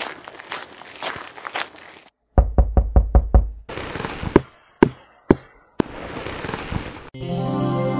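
Footsteps, then a quick run of about seven knocks on a door, followed by a few sharp single clicks and a short rush of noise. Music starts about seven seconds in.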